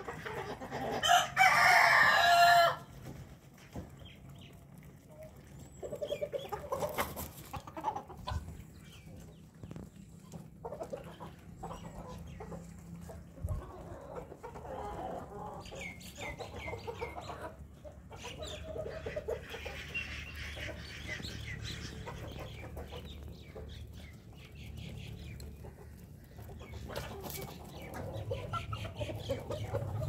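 A flock of chickens clucking, with a rooster crowing loudly about a second in. Shorter calls and clucks go on through the rest.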